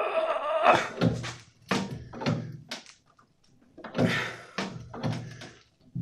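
An adjustable wrench is levering a welded steel arm on a homemade bandsaw's wheel mount back and forth, and the saw's frame knocks and thunks about seven times, with a short pause midway. A drawn-out pitched sound comes first. The weld is still holding.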